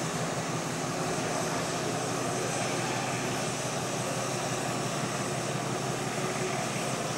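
A steady mechanical drone with a low hum, unchanging in level.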